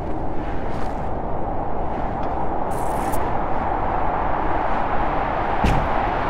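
Blizzard wind blowing steadily, a dense rushing noise with deep rumble and brief hissing gusts. A dull thump comes near the end.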